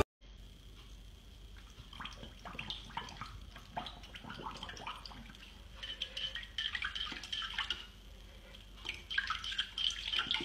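A dog pawing and scooping at the water in its bowl: light splashes and drips that come in spells, with the bowl knocked now and then.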